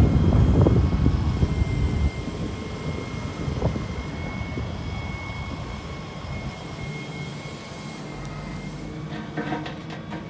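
Excavator's diesel engine running: louder and rumbling for the first two seconds, then a quieter steady run with a thin high whine over it.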